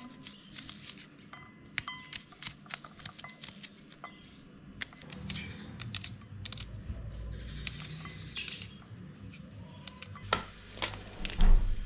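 Small knife cutting a red onion held in the hand, a run of short crisp clicks and snips as the slices come off. A low rumble joins about halfway through, and there is a louder knock near the end.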